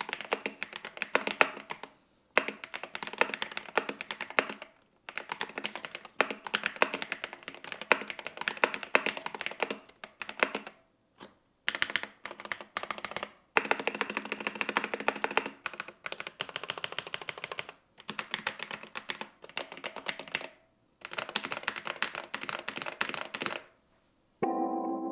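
Fast typing on a DrunkDeer A75 keyboard with Hall-effect magnetic switches and ABS keycaps: rapid clacking keystrokes in bursts of a few seconds, with brief pauses between them. Music comes in at the very end.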